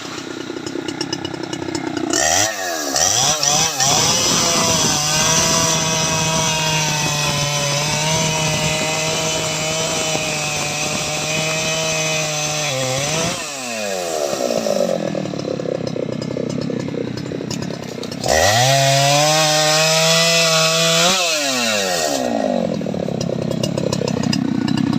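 Jonsered 2095 Turbo 93.6 cc two-stroke chainsaw idling, then opened to full throttle about two seconds in and held at high revs for about ten seconds, its pitch wavering as the chain cuts into teak wood. It drops back to idle, is revved again for about three seconds and returns to idle near the end.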